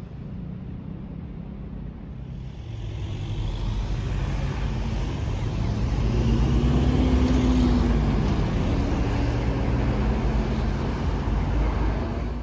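Road traffic on a busy multi-lane city street: cars and city buses driving past close by, a steady rumble of engines and tyres. It grows louder after about two seconds and is loudest around the middle as vehicles pass nearest.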